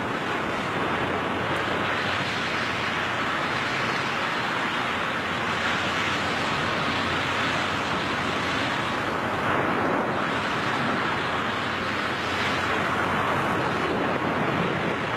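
Steady rushing wind of skydivers in freefall, air buffeting the microphone in an even roar with small swells.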